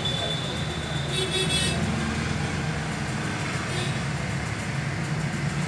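Steady low background rumble, with a short high-pitched toot lasting under a second about a second in.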